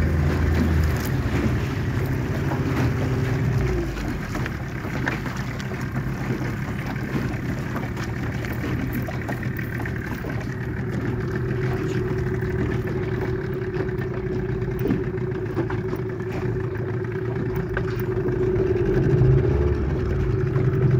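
Small fishing boat's engine running steadily under way, with water rushing along the hull; it grows a little louder near the end.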